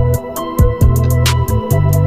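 Instrumental background music with a steady beat and deep bass notes.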